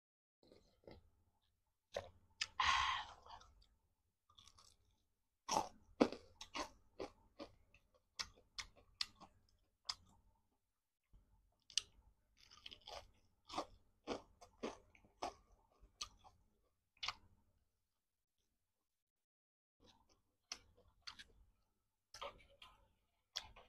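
Close-miked eating: a drawn-out slurp of noodles about two seconds in, then chewing with wet mouth clicks, crunches and bites of fried chicken in irregular runs.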